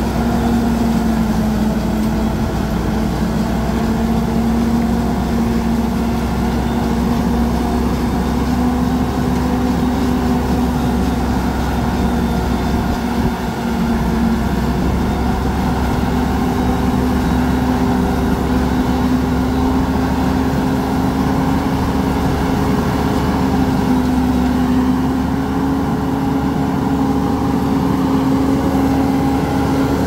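Deutz-Fahr Agrolux 80 tractor running under load and driving a PTO-powered Celikel Challenger 3 forage harvester that is chopping standing maize and blowing silage through its spout. The result is a steady mechanical drone with a humming tone that rises slightly in pitch over the second half.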